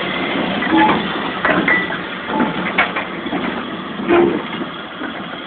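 Steam locomotive at work: about half a dozen irregular metallic clanks and knocks over a steady noisy hiss.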